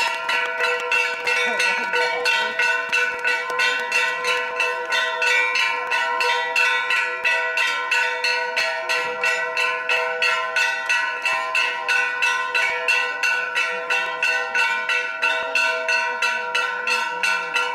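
A metal bell or gong struck over and over in a fast, even rhythm, roughly three strikes a second, its ring never dying away between blows.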